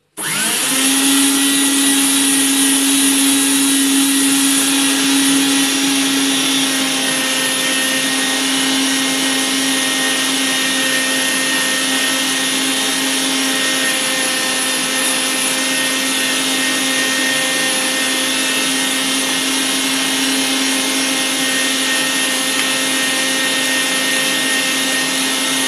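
Electric meat grinder starting up at once and running steadily as it grinds raw chicken breast: a loud, even motor hum with a high whine over it.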